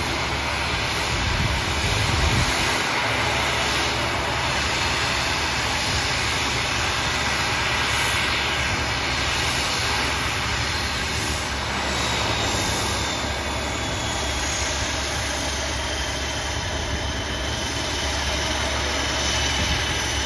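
ATR 42-600 turboprop's engines and propellers running at ground idle: a steady drone and hum. A faint high whine drifts in pitch in the second half.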